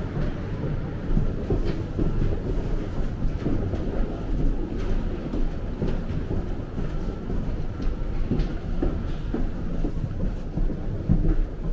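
Footsteps and rolling suitcase wheels on a walkway floor: a continuous low rumble with an irregular clatter of steps and wheel bumps.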